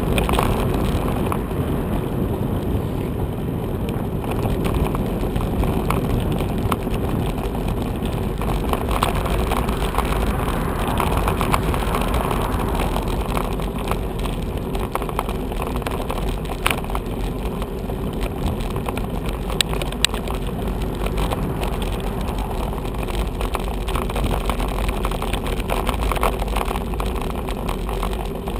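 Steady road rumble from a bicycle rolling over worn, patched tarmac, picked up by a camera mounted on the bike, with frequent small rattles and knocks from the bike and mount.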